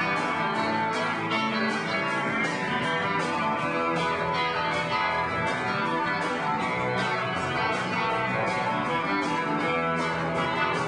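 Rock band playing live, with electric guitar over a steady, fast beat.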